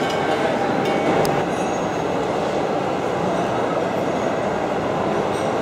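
Steady hubbub of a busy exhibition hall: many indistinct voices blending into a continuous murmur.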